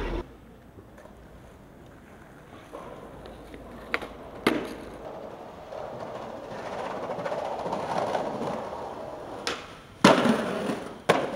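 Skateboard wheels rolling on concrete, growing louder as the board approaches, then a loud sharp clack of the deck hitting the ground about ten seconds in, with a second knock about a second later. A few lighter clacks of the board come earlier.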